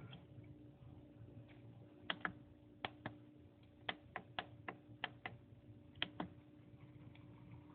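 About a dozen short, sharp clicks, many in quick pairs, from an HO scale model railroad turntable's mechanism or its controls, over a faint steady hum.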